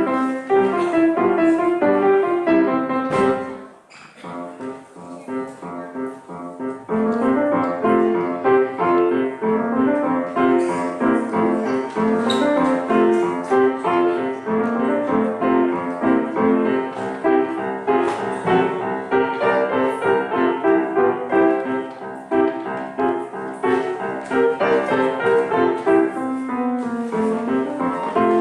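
Piano playing a lively piece. The music falls briefly quiet about four seconds in, then picks up again.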